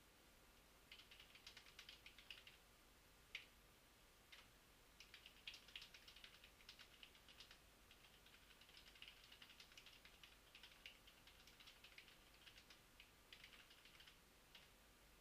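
Faint typing on a computer keyboard: quick runs of keystrokes broken by short pauses.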